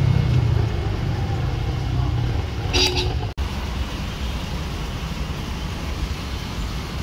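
Road vehicle engine running with traffic noise, and a short horn toot about three seconds in.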